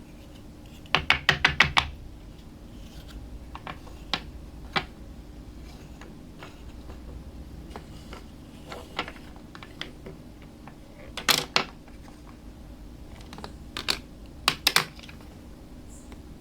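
Small plastic dollhouse toy pieces clicking and tapping as they are handled and set down: a quick run of about seven clicks about a second in, scattered single taps, then short clusters of clicks later on and near the end.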